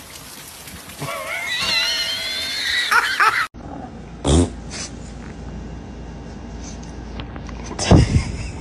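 A dog whining with a wavering, rising pitch for about two seconds. Then two short, low fart noises, about four seconds apart and the second louder, faked by a person to make a small dog think she is farting.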